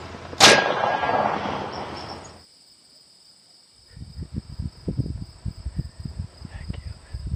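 A single shot from a big bore air rifle about half a second in: one sharp crack whose noise dies away over about two seconds. A run of low knocks and rustles follows near the end, as the shooter moves in the blind.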